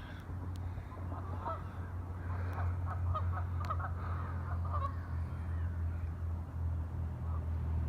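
Geese honking, a flurry of short calls over the first five seconds or so. Underneath is a low steady rumble that grows louder toward the end.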